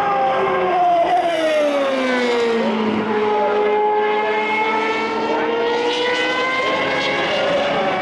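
2013-spec Super Formula race cars' 3.4-litre naturally aspirated V8 engines at racing speed. The engine pitch falls for about three seconds, holds, then rises again near the end as they accelerate.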